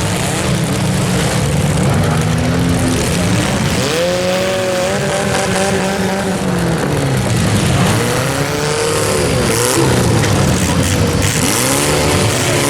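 Several compact cars' engines revving hard and dropping back again and again in a demolition derby, over a continuous din of engines and tyres.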